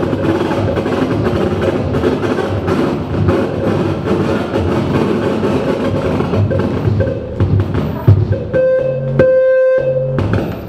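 Live noise music from hand-built electronic instruments: a dense, crackling wash of noise over a steady hum. About eight and a half seconds in it gives way to a clear held tone rich in overtones for a second or two, then the noise returns.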